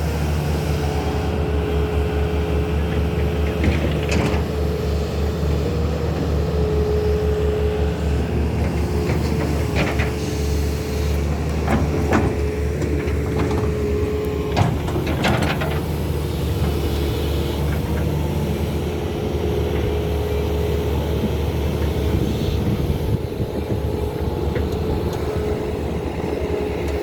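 Excavator diesel engine running steadily under load, with a steady whine over the hum, and a few short sharp clanks as the machine works, around four, ten, twelve and fifteen seconds in.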